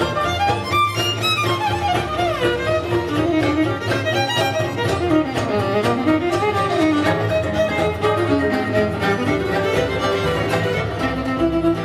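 Instrumental music led by a violin, its melody sliding and wavering in pitch over a sustained accompaniment.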